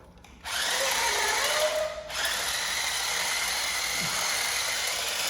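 Toy remote-control car's small electric motor and gears whirring steadily. It starts about half a second in and cuts out briefly around two seconds.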